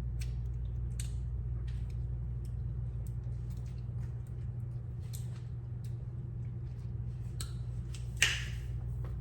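Pancakes cooking in a pan: faint scattered ticks and pops over a steady low hum, with one sharper click about eight seconds in.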